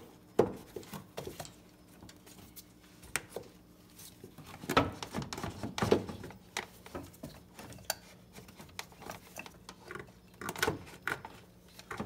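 Hard plastic air filter box casing being pressed and wiggled down into its seat by hand: irregular knocks, clicks and scrapes of plastic on plastic.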